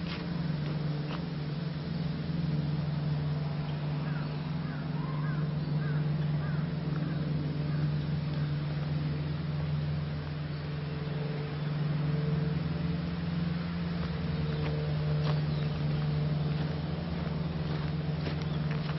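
A steady low machine hum with a few even overtones runs throughout. About four seconds in, a small bird gives a quick run of six or seven short falling chirps, and footsteps on a leaf-covered dirt path tick faintly now and then.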